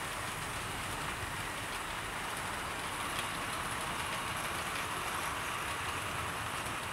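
00 gauge model train running past on the track: a steady hiss of metal wheels and motor that swells a little in the middle as it comes nearest, with a few faint clicks.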